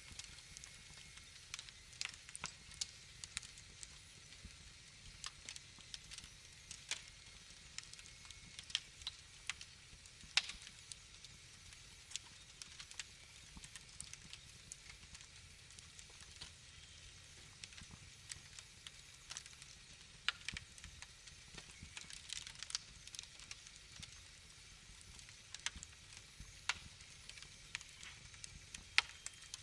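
Wood fire in a fireplace crackling: irregular sharp pops and snaps, several a second, over a soft steady hiss.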